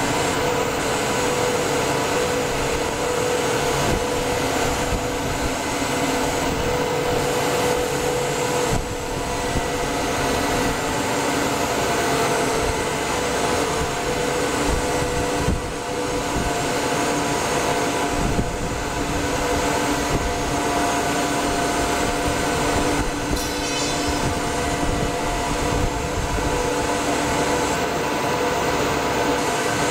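HXE-17DST intermediate copper wire drawing machine with online annealer running at speed: a steady mechanical drone from its drive and spinning pulleys, with a few steady hum tones held in it throughout.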